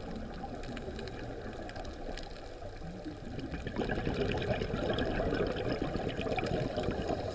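Underwater sound of a scuba diver's exhaled bubbles, a low bubbling rush that grows louder about four seconds in, with faint scattered crackling clicks.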